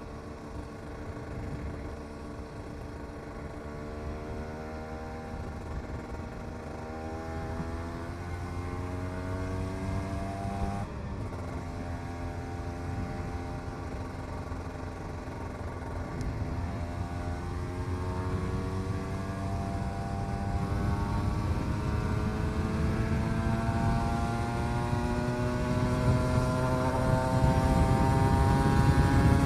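Cagiva Mito 125's single-cylinder two-stroke engine pulling under way. Its note rises slowly, drops at a gear change about eleven seconds in, then climbs again and grows louder, with wind noise throughout.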